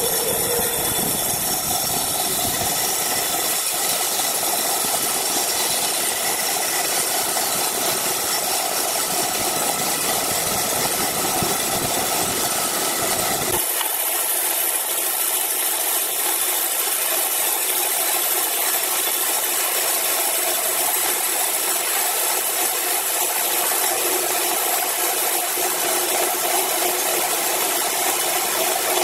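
Horizontal band sawmill blade running through a large timber block: a steady sawing hiss with constant machine tones underneath. The low rumble drops out about halfway through, while the hiss carries on.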